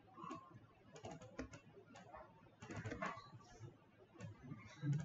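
Faint, irregular clicking of computer keyboard keys, in a few small clusters of keystrokes.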